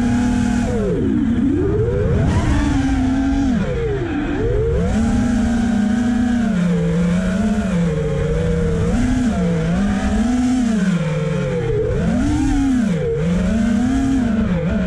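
FPV quadcopter's brushless motors and propellers whining, the pitch swinging up and down over and over as the throttle is worked, with a rushing noise of air over the craft.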